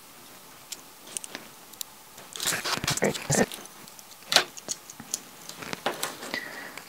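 Small clicks, taps and rattles of tiny screws and PCB-mounted standoffs being handled and fitted to a circuit board. The clicks come scattered, busiest around the middle, with one sharper click just after.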